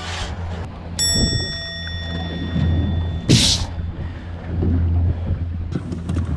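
Small fishing boat's engine running with a steady low hum, with a single ringing ding about a second in and a short burst of hiss near the middle.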